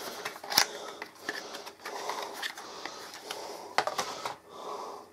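Cardboard packaging and a plastic-wrapped USB cable being handled: uneven rustling and scraping with scattered sharp clicks and taps.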